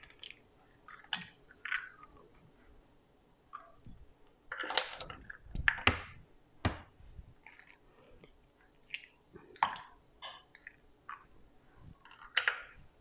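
Scattered light clicks and short squelching scrapes from handling a glass bowl of raw eggs and hard butter with a silicone spatula.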